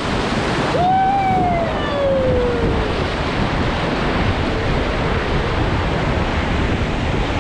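Rushing river water with wind on the microphone, a steady noise. About a second in, a person gives one long drawn-out call that falls in pitch.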